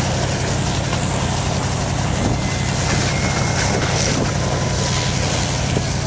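4x4 truck engine running steadily, with an even rushing noise over its low hum.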